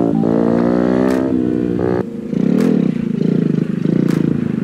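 Motorcycle engine revving up, its pitch rising for about two seconds. It then drops back to a lower, rough, pulsing run.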